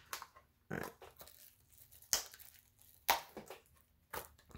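Small cardboard trading-card box and cards being handled on a wooden butcher-block table: a handful of separate short scrapes and taps, the loudest about two and three seconds in.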